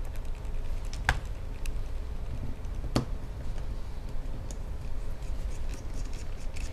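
Small clicks and ticks of a precision Torx screwdriver and tiny screws while the battery screws are taken out of a MacBook Air, with two sharper clicks about one and three seconds in. A steady low hum sits underneath.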